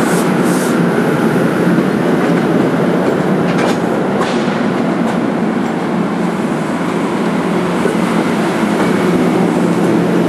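NJ Transit commuter coaches rolling slowly past close by: a steady rumble of steel wheels on rail, with a few sharp clacks about four seconds in.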